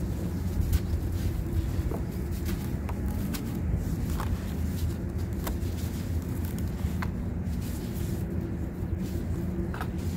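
Dry sand crumbling: a steady, dull, grainy rustle with scattered small sharp crackles.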